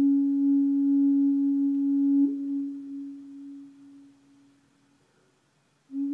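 Native American flute holding one long, low, pure note, with a brief flick upward about two seconds in. The note then dies away, and after a moment of quiet a new note begins right at the end.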